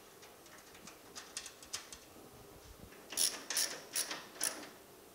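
Ratchet wrench clicking as the bolts holding the aluminum radiator to the radiator support are tightened. Faint quick clicks come first, then about five louder clicks in the second half.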